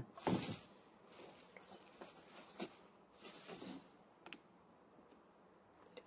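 Scattered light rustles and small clicks of food and paper wrapping being handled at a table, with a thump at the very start and a second short rustle about three seconds in.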